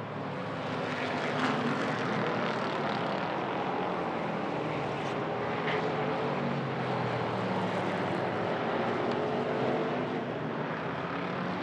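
Hobby stock race cars running laps together on an oval track, a continuous blend of several engines at racing speed whose pitch drifts up and down as cars pass.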